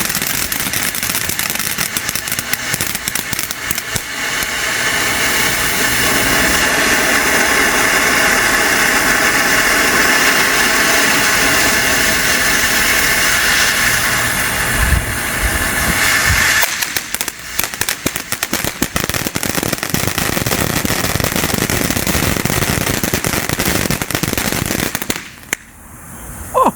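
TNT Fireworks Crash Course fountain firework burning with continuous dense crackling and spraying. It grows fuller about four seconds in, turns to sharper, more separate crackles past the middle, and dies away near the end.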